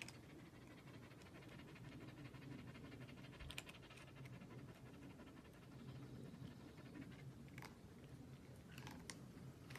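A dog panting faintly, with a few faint short clicks around the middle and near the end.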